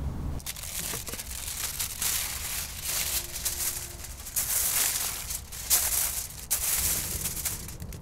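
Aluminium foil crinkling and crackling as a sheet is unrolled from a roll and handled, with a few sharper crackles.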